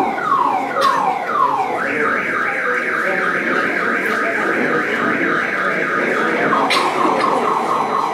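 Car alarm siren cycling through its tones: a falling whoop repeating about twice a second, switching about two seconds in to a fast high warble, then near the end to quicker falling whoops.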